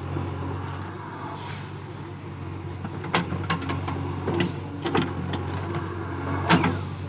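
JCB backhoe loader's diesel engine running steadily, with several sharp knocks and clanks from about three seconds in.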